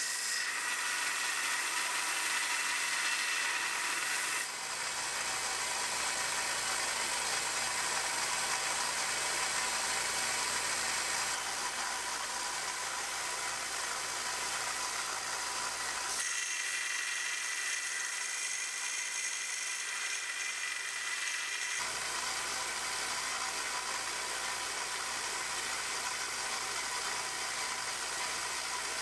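Narrow belt grinder running, with a steel chisel being ground against the moving belt: a steady hissing grind over the motor's hum. The tone and hiss change abruptly several times.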